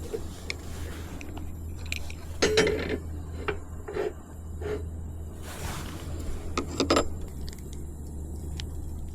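Cookware clinking and clattering: a utensil knocks against a metal pan several times, loudest about two and a half seconds in and again near seven seconds. A steady low hum runs underneath.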